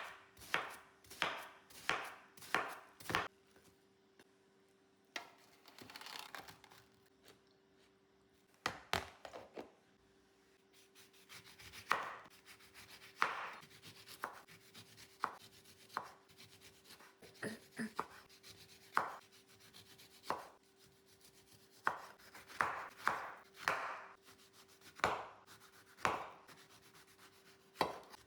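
Knife chopping fruit on a cutting board: runs of sharp cuts about two a second, broken by pauses with quieter scraping and rubbing and a few irregular cuts.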